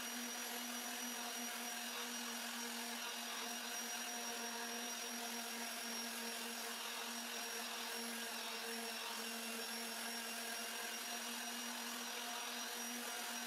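Electric random orbital sander running steadily, wet-sanding epoxy resin and walnut wood with a 600-grit disc: an even motor hum with a faint high whine.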